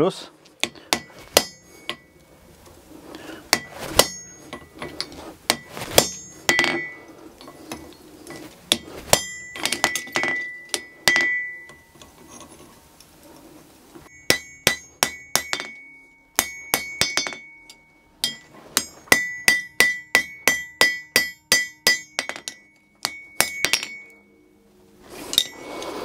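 Hand hammer striking a hot iron latch bar on an anvil, deepening the cross grooves cut into it, each blow ringing. Scattered single blows at first, then quick runs of strikes about halfway through and again near the end, about three a second.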